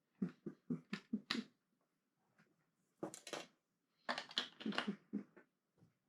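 Plastic Lego pieces being handled, clicking and rattling in three quick clusters of short clatters.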